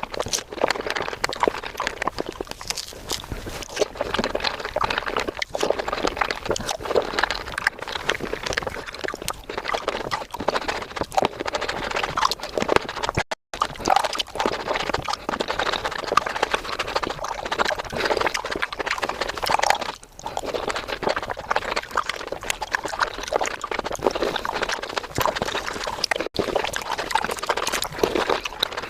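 Close-miked fruit-eating sounds sped up about five times: a dense, rapid stream of crunching and wet chewing clicks, with a momentary break about 13 seconds in.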